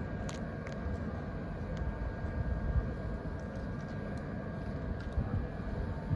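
A train running at a station platform, a steady low rumble with a faint steady tone above it, with gusts of wind on the microphone.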